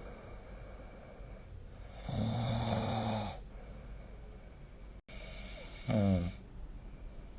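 A sleeping person snoring: one snore lasting over a second, about two seconds in, then a shorter snore with falling pitch about six seconds in.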